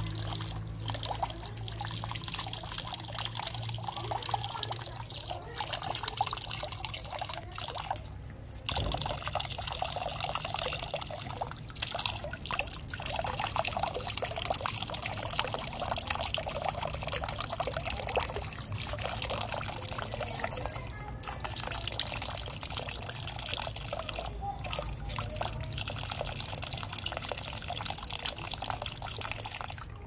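A thin stream of water pouring onto a rose-ringed parakeet's wet feathers and splashing into a bucket of water, a steady pour and splatter with a few brief breaks. A low hum runs underneath.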